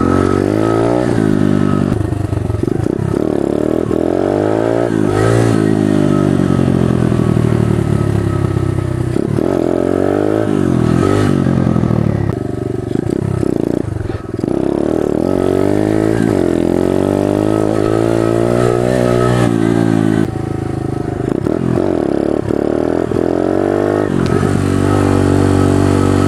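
Pit bike engine running under the rider's throttle, its pitch climbing and then dropping back again and again as it accelerates and shifts through the gears, with short easings off partway through.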